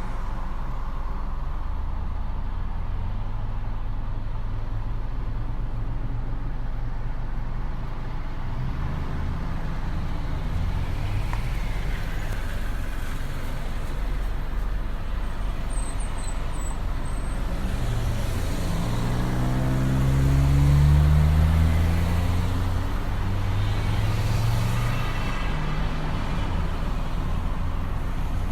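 Town street traffic: a steady low rumble of passing road vehicles. Around two-thirds of the way through, one vehicle's engine passes close and is the loudest sound.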